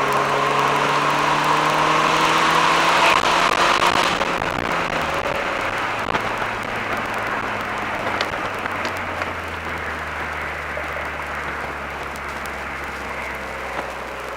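Mercedes-Benz SLK 230 Kompressor's supercharged 2.3-litre four-cylinder pulling in gear with its pitch slowly rising under heavy wind and road noise, then lifting off about four seconds in. After that the engine settles to a lower, steady note as the car cruises.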